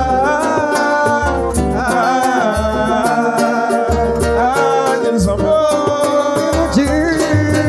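Live pagode band playing between sung lines. A pulsing bass line and percussion strokes run under a melodic line that slides up and down in pitch.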